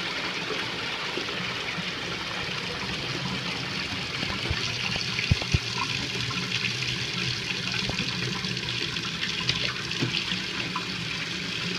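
Toilet tank doing a full flush: water rushing steadily, with a few short clicks, the loudest about five seconds in.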